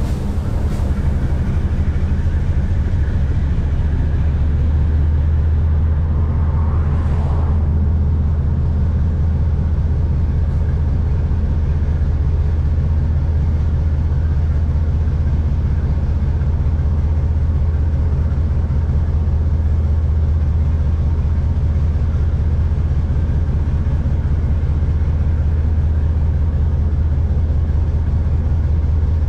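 Diesel locomotive hauling a coal train, heard on board: its engine gives a steady, loud low drone.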